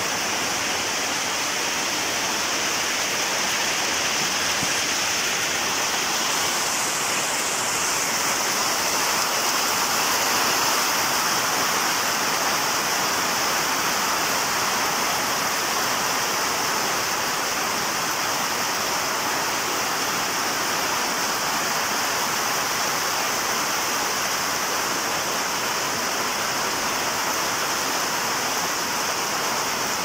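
Steady rain falling on a roof: an even hiss that swells slightly about ten seconds in.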